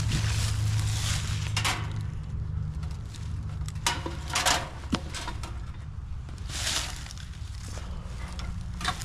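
Footsteps and shuffling in dry fallen leaves, with irregular crunching rustles and a sharp click about five seconds in, over a steady low rumble.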